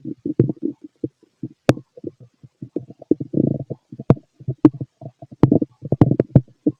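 A man's stomach growling, heard through a stethoscope: a quick, irregular run of short bubbling gurgles, with a few sharp clicks among them.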